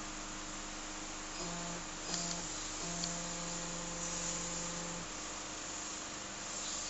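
HF32D hydraulic hose crimping machine running with a steady electric hum; a lower tone joins it in two short spells and then for about two seconds, with a couple of faint clicks.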